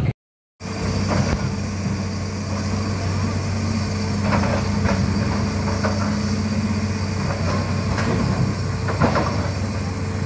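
Hitachi hydraulic excavator's diesel engine running steadily, with a few short knocks mid-way and near the end. The sound cuts in after a half-second gap at the start.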